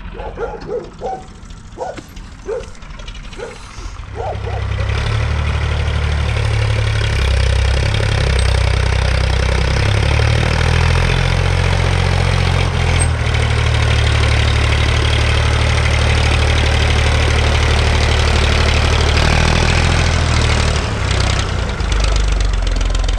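IMT 539 tractor's three-cylinder diesel engine running steadily as it pulls a loaded manure trailer. It comes in loud about four seconds in and eases off near the end. A few short pitched calls are heard in the first few seconds.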